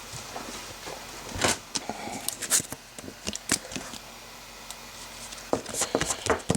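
Trading cards and rigid plastic top loaders being handled: scattered sharp clicks and short rustles of plastic and card stock.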